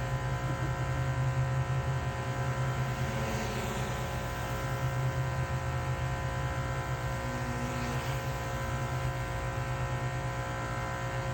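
Pressure washer running steadily: a motor's hum with the hiss of the spray above it.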